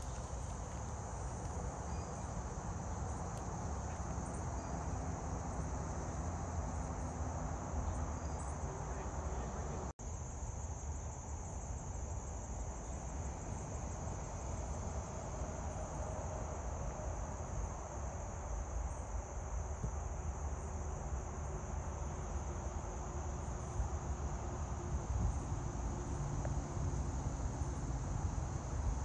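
Steady, high-pitched chorus of insects, with low rumbling noise beneath. The sound drops out for an instant about ten seconds in.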